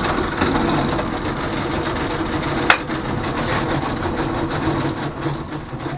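Belt-driven drill press running steadily while drilling, with a single sharp click about two and a half seconds in. A squeak comes from the drive belt, which is loose and needs tightening.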